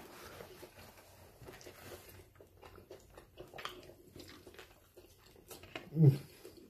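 A person biting into and chewing a Burger King burger: faint, soft mouth sounds and small clicks, with one short, louder low-pitched sound about six seconds in.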